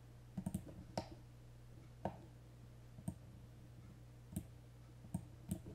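Computer mouse and keyboard clicks, about eight of them: a quick run of three about half a second in, then single clicks roughly once a second, over a faint steady low hum.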